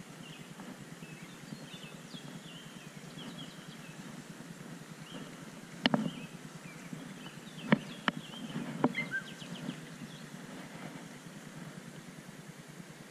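Small birds chirping over a steady low rumble of outdoor ambience, with a few sharp clicks from the baitcasting reel being handled about six to nine seconds in.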